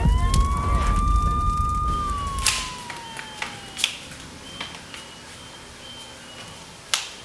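A single whistle-like tone sweeps quickly upward, holds for about two seconds, then glides slowly down and fades, over a low rumble that stops partway through. A few sharp light knocks follow, one near the end.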